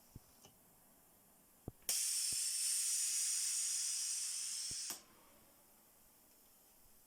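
Pneumatic valve on a low-cost ventilator prototype clicking, then releasing a loud, high hiss of compressed air for about three seconds before it tails off. This is one of the timed air pulses of the pressure test, repeating every six to seven seconds.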